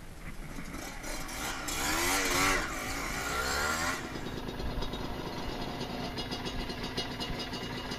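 Two-stroke single-cylinder engine of a Yamaha DT 125 R dirt bike revved up and down several times, then running more evenly at lower revs from about halfway through.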